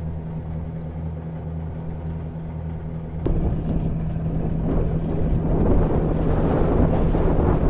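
M109A6 Paladin's diesel engine running steadily with a low, even hum. About three seconds in the sound turns abruptly louder and rougher.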